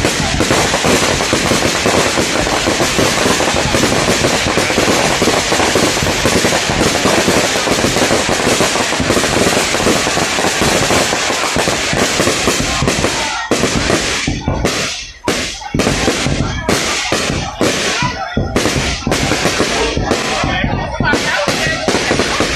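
Aerial fireworks display: a dense, continuous barrage of bursts and bangs. About thirteen seconds in it breaks up into separate bangs with short gaps between them.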